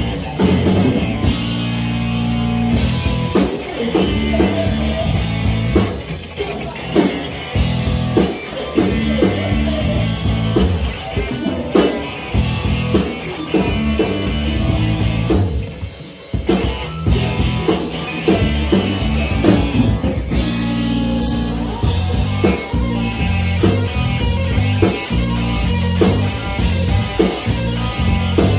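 Live rock band playing loudly: electric guitar over a drum kit, with a brief break in the playing about halfway through.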